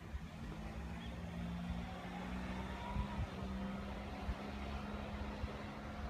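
A road vehicle's engine humming steadily, mixed with a low rumble of wind on the microphone.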